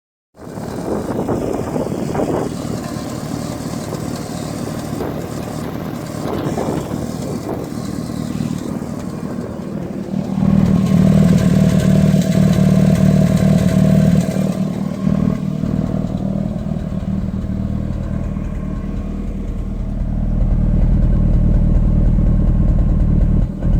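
Mitsubishi Lancer Evolution VIII's turbocharged four-cylinder engine running with a misfire that new spark plugs have not cured and that the owner has not traced to a vacuum or boost leak. It runs choppy and uneven at first, gets louder about ten seconds in, falls back a few seconds later, and rises again near the end.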